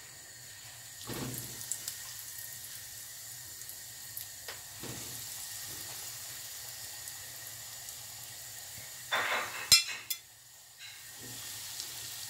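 Breaded potato balls frying in hot oil in a deep pan: a steady sizzle starts about a second in as the first ball goes into the oil. About nine seconds in comes a louder burst of crackling with a few sharp clicks as another ball is added.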